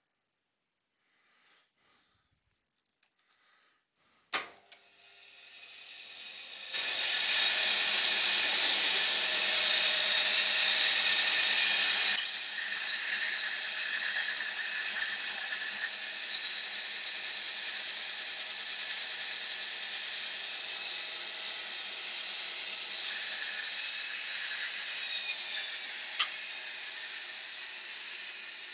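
Bandsaw switched on with a click about four seconds in, the blade building to a steady hiss. It is loudest for about five seconds while the blade cuts through the wooden stair spindle, then runs on a little quieter, slowly fading.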